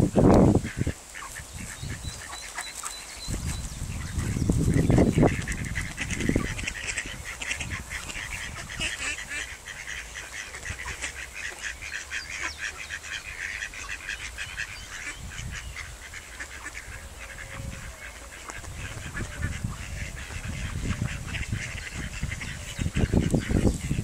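Mallard ducks calling in a quick, repeated run of notes. A few low bumps come at the start, about five seconds in, and near the end.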